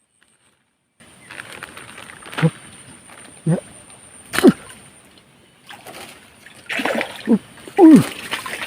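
Water splashing and sloshing in a series of sharp splashes, as a hooked fish thrashes at the surface. The splashes start about a second in, and the loudest comes near the end.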